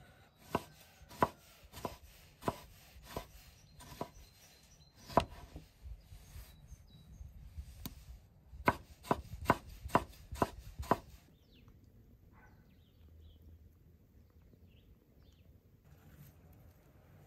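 Kitchen knife slicing cherry tomatoes on a wooden cutting board, the blade knocking on the board with each cut. The cuts come about every half second, then in a quicker run, and stop about two-thirds of the way through.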